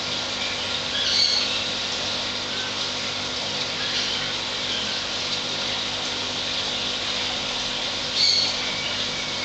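Steady hiss and low hum of aquarium water and pump equipment, with three short bird chirps: about a second in, about four seconds in and near the end.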